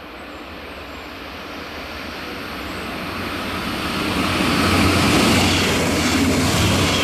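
Two coupled Alstom LINT 41 diesel railcars approaching and passing through a halt at speed without stopping. The diesel engine drone and wheel-on-rail noise grow steadily louder and peak about five seconds in as the train goes by.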